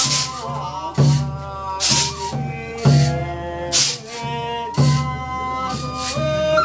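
Live Japanese folk music: a man sings with a wavering voice over a transverse bamboo flute, with a percussion beat about once a second.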